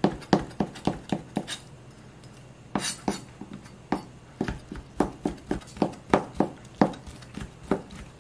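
Kitchen knife slicing rehydrated shiitake mushrooms into thin strips on a plastic cutting board: quick knife taps about three a second, with a short pause about two seconds in.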